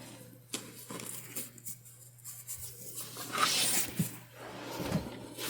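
Soft fabric rustling with light clicks and knocks as a sewn velvet bag is handled, with a louder brief rustle about three and a half seconds in.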